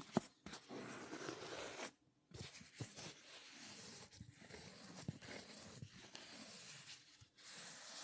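Phone cases rubbed and scraped against each other close to the microphone. The sound is a scratchy rustling with small clicks and taps, one sharp click near the start, and a brief pause about two seconds in.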